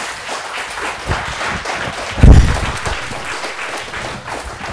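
Audience applauding, with one loud, low thump about two seconds in.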